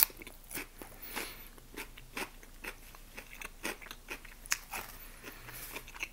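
A person chewing and eating close to the microphone: irregular mouth clicks and smacks, with a sharp one right at the start.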